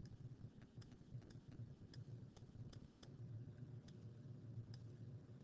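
Faint, irregular light clicks and taps of a stylus writing on a tablet screen, over a low steady hum.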